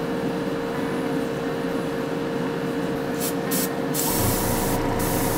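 Airbrush spraying paint: two short hissing bursts about three seconds in, then a longer burst from about four seconds on, over a steady background hum.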